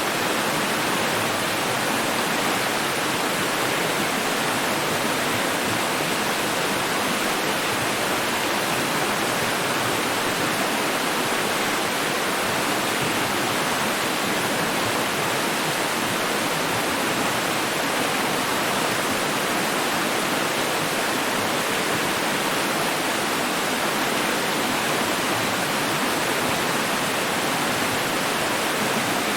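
Running water rushing in a steady, even hiss that never changes or breaks.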